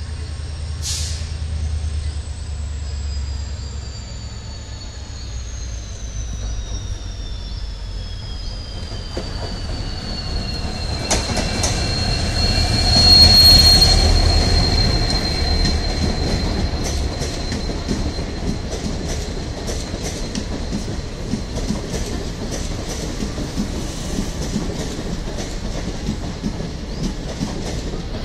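WDG-4D diesel locomotive approaching and passing with a low engine rumble, loudest about halfway through, over a high whine that slowly falls in pitch and then holds steady. After it passes, the passenger coaches roll by with a steady clickety-clack of wheels over rail joints.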